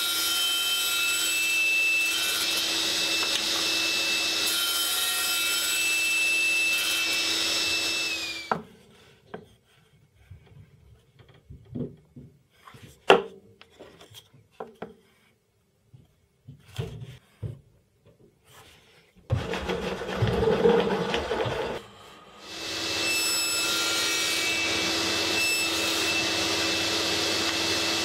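Table saw running steadily, then switched off and winding down about eight seconds in. A quiet stretch of light knocks and taps follows as wooden blocks are handled, with a short rush of noise a few seconds before the saw starts up and runs steadily again.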